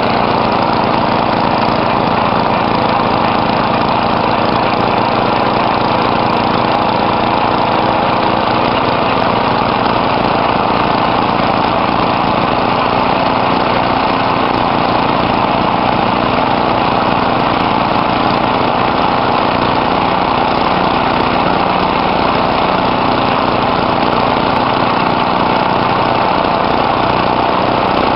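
Small engine of a simple well-drilling machine running steadily at an even speed.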